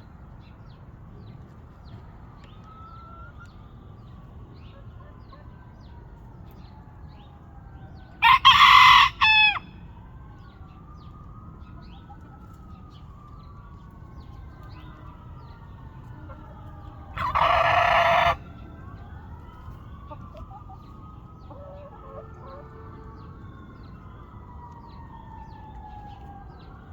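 A hen gives a loud, harsh crow-like call twice, about eight seconds in and again near seventeen seconds in; the first is broken into two parts. The owner says this is not from an upper respiratory infection. Faint rising-and-falling tones sound in the background.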